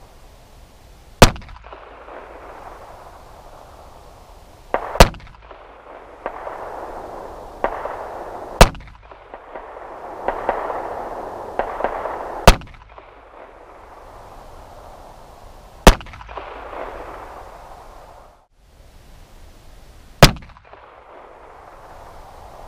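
Six shots from a Rock Island Armory Baby Rock .380 ACP compact pistol, fired one at a time about three to four seconds apart, each a sharp crack.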